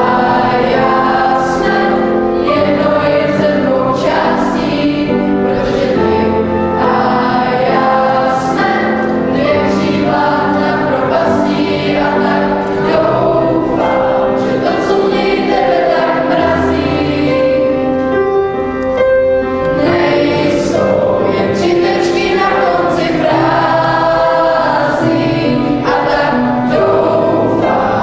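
A choir singing a song to instrumental accompaniment with a steady beat.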